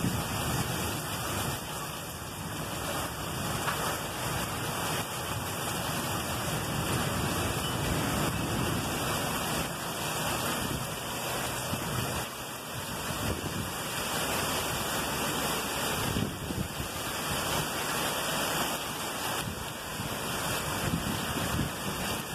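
Heavy thunderstorm downpour: a steady rush of rain, with runoff water pouring off the roof edge, and some wind.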